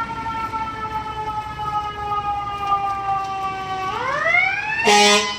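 Fire engine siren, its pitch slowly falling, then winding back up about four seconds in. Near the end comes a loud blast of the truck's air horns.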